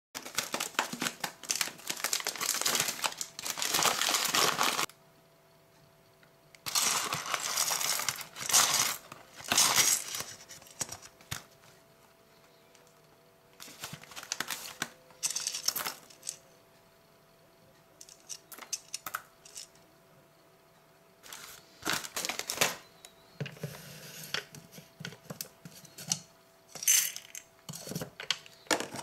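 Whole coffee beans rattling and a paper coffee bag crinkling as beans are poured and weighed, in several bursts with quiet pauses between, followed by scattered clicks and knocks from handling a coffee grinder's lid and parts.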